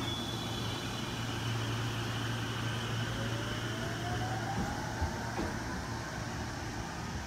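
JR West 521 series electric train pulling away and accelerating: a steady low hum with a whine from its drive that rises in pitch over the second half, and a couple of light knocks about five seconds in.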